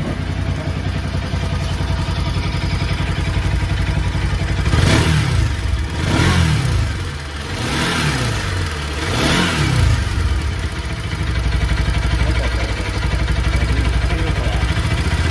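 Bajaj Pulsar NS200's single-cylinder engine idling, blipped up and back down four times in quick succession in the middle, then settling to idle again. Under it runs the 'tik tik' ticking from inside the engine, which the rider puts down to loose tappets (valve clearance) on the worn engine.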